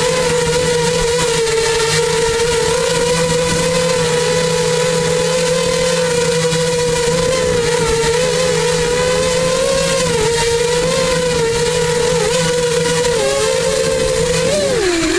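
FPV quadcopter's motors and propellers whining steadily in a hover, the pitch wavering slightly. Near the end the pitch dips sharply and then climbs back as the drone maneuvers.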